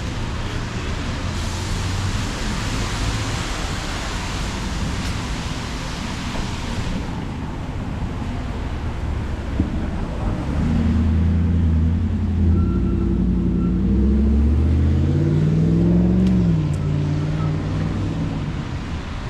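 Street traffic on a wet road: a steady hiss like tyres on wet pavement, then a vehicle's engine close by for several seconds, its note rising and falling in pitch as it pulls away.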